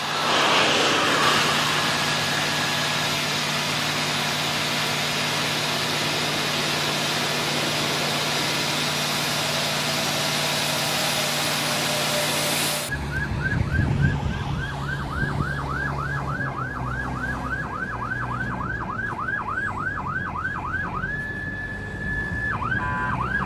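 A loud, steady roar for about the first half, which cuts off abruptly. Then an emergency vehicle's siren yelps rapidly up and down, about three sweeps a second, holds one steady note briefly, and then switches to another pattern near the end.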